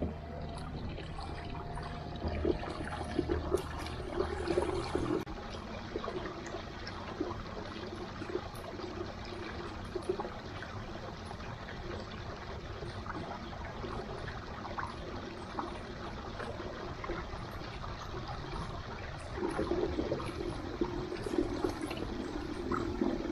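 Water trickling and splashing along the hulls of a small sailing trimaran under way, with louder stretches near the start and toward the end.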